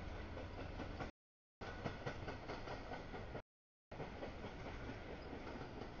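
Double-stack intermodal freight train cars rolling past with a steady rumble of wheels on rail and some clicking over the rail joints. The audio cuts out completely for about half a second twice.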